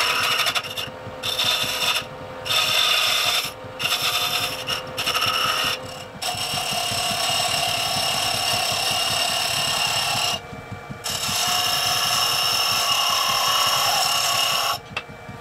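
A carbide lathe tool cutting a shallow kerf into a small wooden toy wheel spinning on a wood lathe. It cuts in several short passes over the first six seconds, then in two longer steady cuts broken by a short pause about ten seconds in, with the lathe's hum running underneath.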